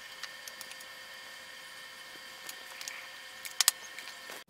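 Faint, scattered clicks and taps of wires and connectors being handled on a tabletop, with two sharper clicks about three and a half seconds in, over a faint, steady, high-pitched electrical hum.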